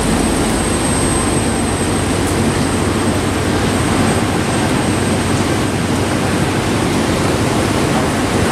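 A steady, loud wash of ocean surf and rain, with the low running of old cars' engines under it as they pass on the wet boardwalk.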